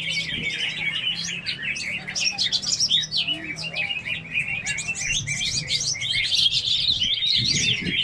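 Many caged competition songbirds singing at once: a dense, unbroken chorus of rapid overlapping chirps, whistles and trills.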